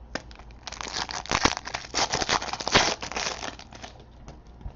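Crinkling of a sports card pack's foil wrapper as it is handled and torn open, a dense run of crackles that dies away about three and a half seconds in.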